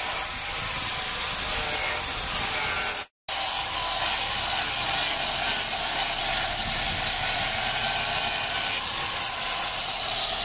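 Angle grinder with a foam-backed sanding pad running steadily as it sands the wooden seat slats, a motor whine over the rub of the pad on the wood. It cuts out for an instant about three seconds in.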